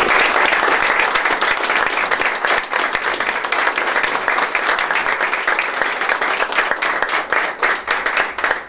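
A small crowd applauding: dense, steady hand-clapping that thins a little near the end.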